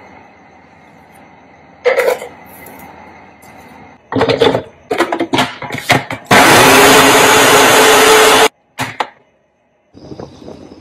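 Small electric food processor motor running for about two seconds as it chops chicken pieces, cutting off suddenly; before it, a scatter of plastic clicks and knocks as the machine is handled.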